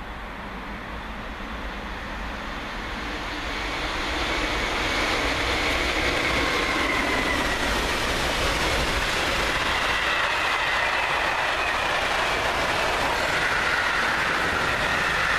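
Intermodal freight train of container and swap-body wagons passing close at speed. It approaches and grows louder over the first few seconds, then holds as a steady rush of wheels on rail with a faint high whine.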